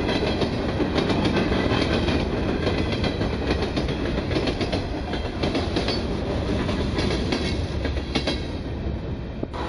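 Freight train cars (covered hoppers and a gondola) rolling past close by: a steady rumble with rapid, irregular clicking of the wheels on the rails. The sound dips briefly just before the end.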